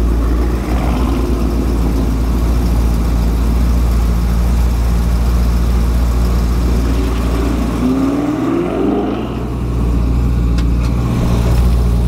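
Car engine idling with a steady low drone, revving up briefly about eight seconds in.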